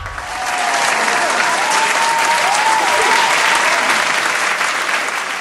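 Applause, a steady patter of many claps that fades near the end, with a wavering cheer over it in the first few seconds.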